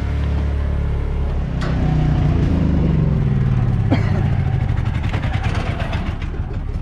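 An engine running steadily, its pitch shifting and sliding for a couple of seconds about one and a half seconds in, with two sharp knocks about a second and a half and four seconds in.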